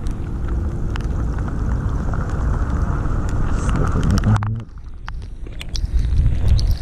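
Wind buffeting the microphone of a body-worn camera: a heavy, uneven low rumble with scattered ticks. About four and a half seconds in, the wind noise drops away briefly, then it picks up again.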